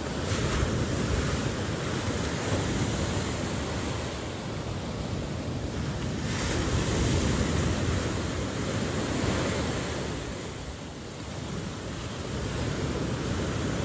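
Ocean surf: a steady wash of waves that swells and ebbs slowly, dipping into a lull a little before the end as the next wave builds.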